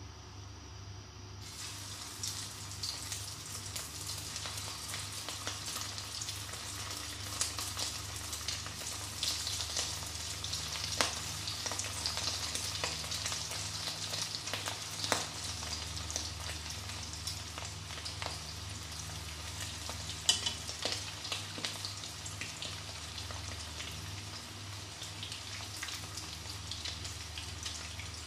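Coated prawns deep-frying in hot oil in a wok: a dense sizzle full of sharp pops and crackles. It starts abruptly about a second and a half in, as the first prawns go into the oil, and grows louder over the next several seconds.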